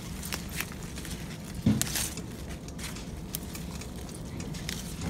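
Leaves rustling and the microphone being handled as the camera pushes through pepper plants: scattered soft crackles and clicks, with one louder knock about a second and a half in.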